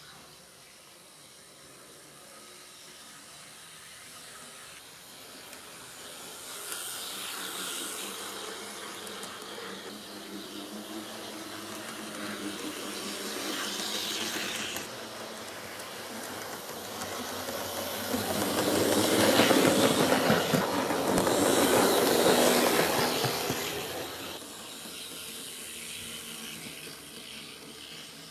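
HO-scale model EH10 electric locomotive and its train running over the layout's track, a rolling rumble that grows louder as it comes near, is loudest about two-thirds of the way in, then falls away.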